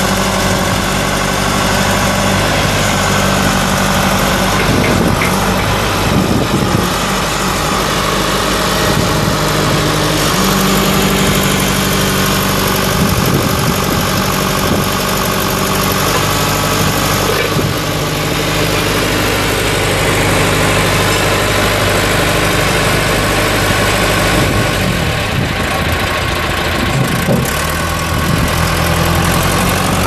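1989 John Deere 410C backhoe loader's diesel engine running steadily as the backhoe arm and loader are worked hydraulically, its note changing a few times as the load shifts.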